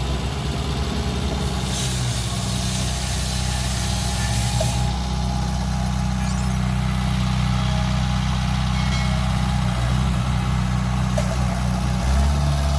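Heavy diesel engine running steadily with an even low drone, growing louder near the end.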